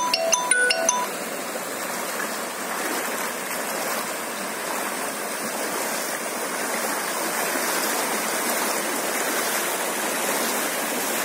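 Fast floodwater from an overflowing stream rushing across a submerged road: a steady, even rushing noise. A few plucked music notes end about a second in.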